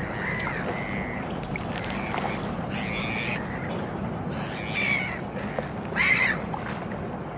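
A bird giving three short, harsh calls over a steady low hum and hiss, the last call the loudest; a thin whistling tone sounds in the first second or so.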